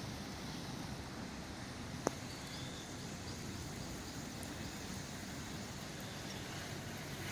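Strong wind blowing on the microphone: a steady noise that is heaviest in the low range, with one sharp click about two seconds in.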